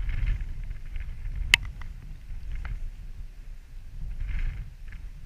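Wind buffeting the camera microphone with an uneven low rumble, with a sharp click about one and a half seconds in and a couple of fainter clicks after it.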